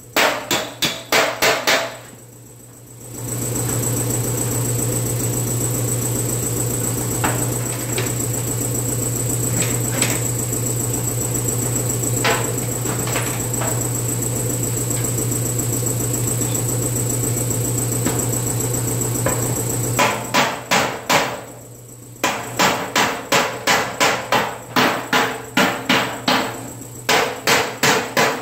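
Hammer blows on sheet-steel fender panel, an even run of about two to three strikes a second, in the first two seconds and again over the last eight seconds. In between, a steady machine hum runs for about sixteen seconds with only a few light taps, then cuts off.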